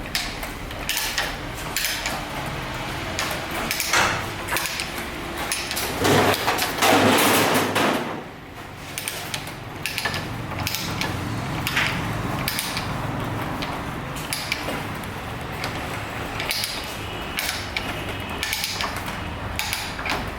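Irregular knocks and clatter, like hand tools striking metal or hard fittings. A louder, rough, noisy stretch lasts about two seconds, some six seconds in.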